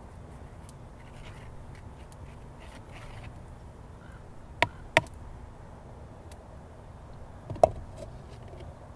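Fired clay lid and wooden stick handled against a clay cooking pot: two sharp clicks close together about halfway through, then a louder knock near the end as the lid goes onto the pot.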